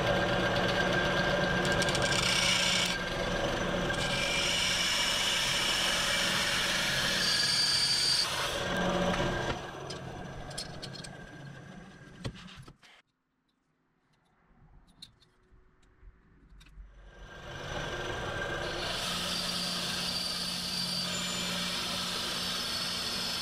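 Benchtop bandsaw running and cutting aluminum angle stock: a steady motor hum under the blade's hissing rasp. Near the middle the saw stops, leaving a quiet stretch with a few faint taps. Then it runs and cuts again for the last five seconds or so.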